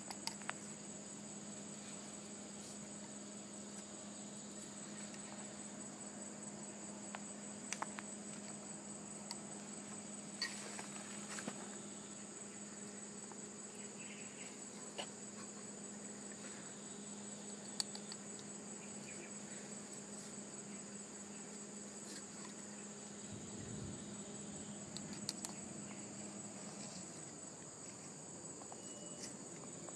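Steady high-pitched chirring of insects such as crickets, with a low steady hum underneath that fades near the end. A few faint clicks and scrapes come from a metal spatula working the soil.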